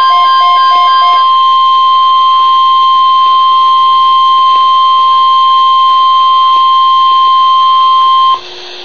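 Emergency Alert System attention signal: a single steady high alarm tone held for about eight seconds, then cut off sharply shortly before the end. It is the signal that an emergency alert message is about to follow.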